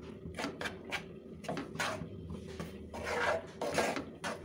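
Wooden spatula stirring grated khoya in a nonstick frying pan as it dry-roasts: light taps against the pan, with two longer scraping strokes, one about a second and a half in and one near the end.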